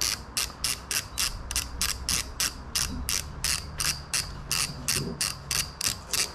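Socket ratchet wrench clicking steadily, about four clicks a second, as it is worked to unscrew the spark plug from a Honda GX35 four-stroke engine.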